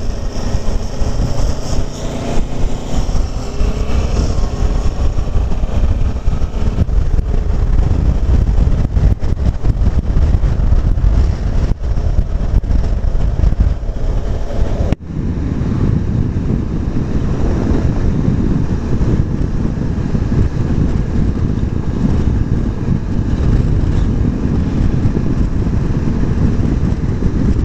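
Wind rushing over the microphone of a moving motorcycle, with the engine running underneath. The sound drops out briefly about halfway through.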